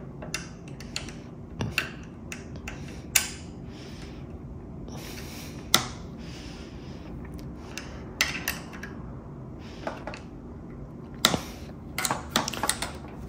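Scattered small clicks and taps of hands and a small wrench working a hydraulic bicycle disc brake while it is bled: the lever is held and the bleed nipple at the caliper is loosened and tightened. A few sharper clicks stand out, with a cluster near the end, over a steady low hum.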